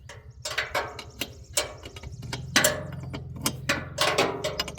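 Hand tools clanking and clicking irregularly against metal parts of a tractor wheel assembly, over a low steady engine-like hum.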